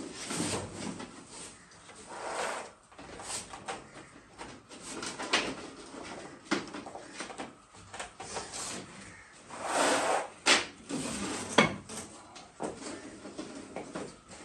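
Irregular knocks, scrapes and rustles of objects being handled and set down, with louder clatters about two, five and ten seconds in.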